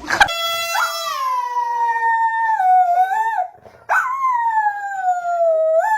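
A dog howling: two long howls of about three seconds each, each sliding slowly down in pitch and rising briefly at the end, with a short breath between them.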